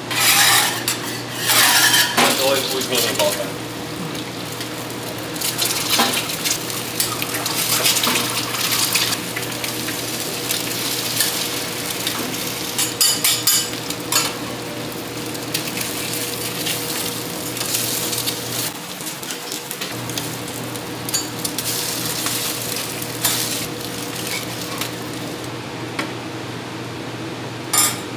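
Metal utensils clattering and scraping against steel pans and a griddle, with eggs frying and sizzling on the flat-top, over a steady low hum. The clatter is loudest in the first few seconds.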